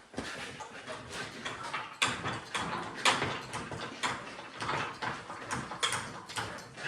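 Irregular clunks, knocks and scraping from hand work on parts and tools, with no steady tone. The loudest knocks come about two and three seconds in.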